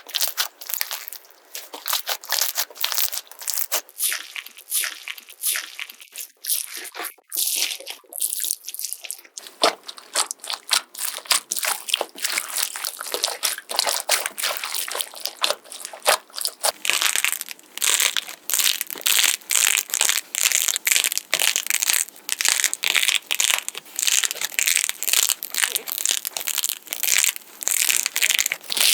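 Slime being squeezed, pressed and stretched by hand, making a dense run of quick wet crackling and popping clicks. The crackling gets denser and brighter about halfway through.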